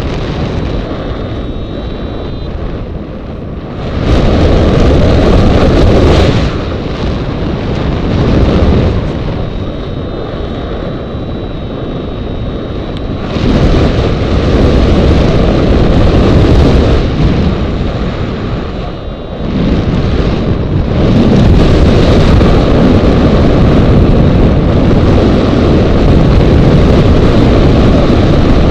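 Airflow rushing over the microphone of a camera mounted on a hang glider in flight, a loud wind noise that swells and eases in gusts, loudest from about four seconds in, again from about thirteen seconds and from about twenty-one seconds on.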